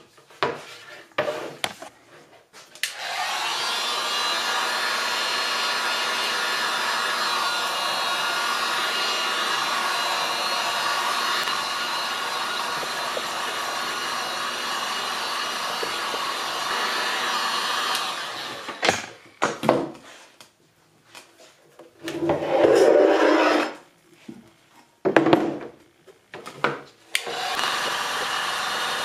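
Electric heat gun running: a steady rush of blown air with a motor whine. It cuts off after about fifteen seconds, a few knocks and clatters of handling and clamping follow, and it starts up again near the end.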